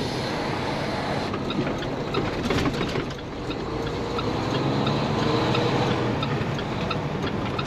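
Semi truck's diesel engine running as the tractor gets under way, heard from inside the cab, its pitch rising for a few seconds in the middle.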